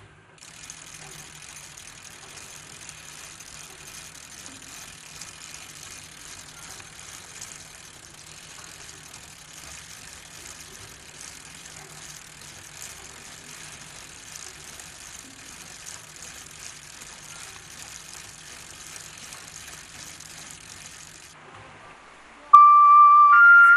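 A steady, high rasping hiss with fine ticking runs until it cuts off about 21 seconds in. Near the end a loud flute melody comes in.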